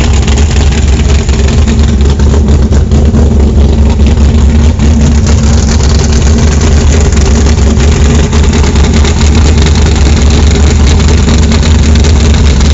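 Mud bog truck's exposed V8 engine, with short open header pipes, idling loudly and steadily.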